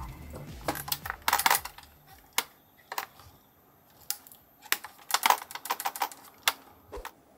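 A loose part rattling inside a Mac mini's slot-loading optical drive as the drive is tilted and shaken by hand. It sounds as irregular clusters of light clicks and clatters: something has come loose inside the drive.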